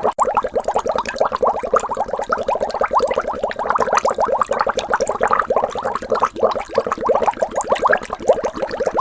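Water bubbling: a dense, continuous stream of bubbles, each a short blip rising in pitch.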